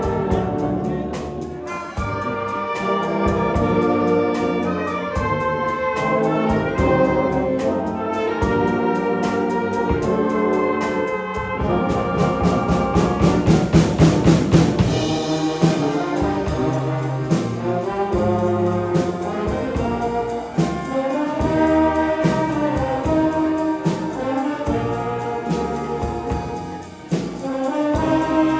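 Wind band playing, with trumpets and trombones to the fore. The music swells to its loudest passage a little before halfway through.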